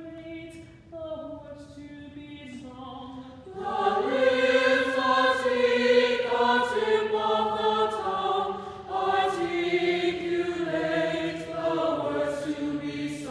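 A choir sings an articulation warm-up, quietly at first, then much louder and fuller from about three and a half seconds in.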